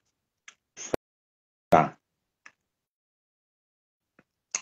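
Mostly quiet room with a few small clicks and ticks, a short vocal sound from a woman about two seconds in, and a brief breathy hiss near the end.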